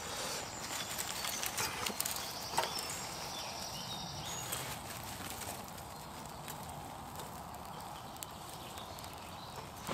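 Thin dry twigs being laid over a freshly lit fire in a metal fire pit: sharp clicks and snaps of sticks knocking together and against the steel, along with the kindling catching. The clicks are busiest in the first three seconds and thin out after that, over a steady background hiss.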